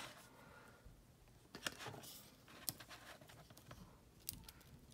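A few faint, sharp clicks and taps of plastic action figures being handled and set down on a tabletop, two of them close together a little after a second and a half in and another pair near the end.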